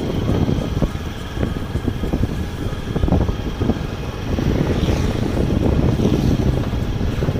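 Wind noise on the microphone of a camera riding along on an open moving vehicle, over steady road and engine noise.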